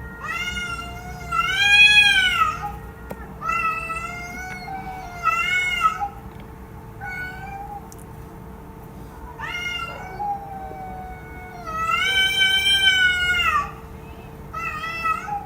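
A cat meowing repeatedly, about eight drawn-out calls that each rise and fall in pitch, the longest near two seconds in and again about twelve seconds in. A faint steady hum runs underneath.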